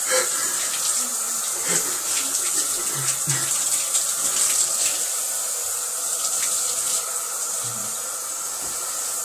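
Water running steadily into a bathtub, with a constant hiss and small splashes.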